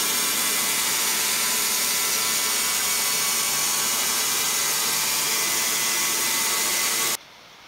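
Wood-Mizer LT15 band sawmill running, loud and steady, cutting off suddenly near the end.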